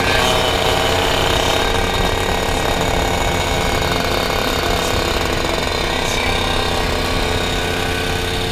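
Two-stroke Vespa 50 Special scooter engine running at steady high revs under way, a rapid buzzing with wind noise over it.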